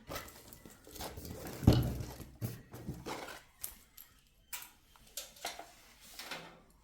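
Handling noises from PC hardware in a Micro ATX case: a run of short knocks and clicks, with one heavier thump about two seconds in.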